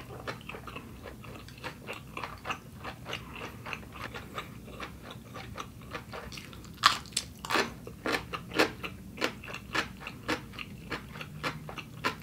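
A person chewing food close to the microphone, with wet clicks and smacks. A sharper, louder bite comes about seven seconds in, then steady chewing at about two chews a second.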